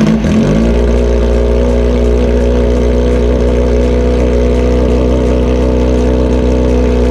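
2009 Kawasaki ZX-6R's inline-four engine catching and then idling steadily, its pitch settling down in the first half second. It is being run just after an oil change to circulate the fresh oil.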